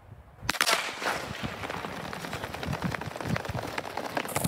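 A sharp crack about half a second in, the start signal, then a rapid, dense clatter of many sprinters' feet striking a synthetic track as a group accelerates out of the starting blocks.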